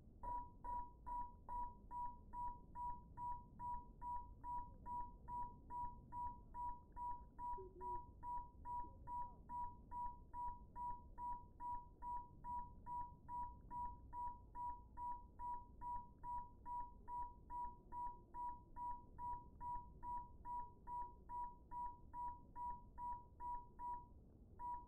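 Lost-model beeper of a crashed FPV drone beeping, about two beeps a second, steady and evenly spaced, with a short pause near the end. The drone is down in the grass and beeping so that it can be found.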